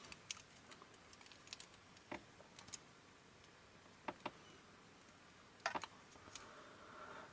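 Faint scattered clicks and light knocks of multimeter test leads being handled, their plastic plugs and probes tapping together and against the meter as they are lined up to plug into its sockets.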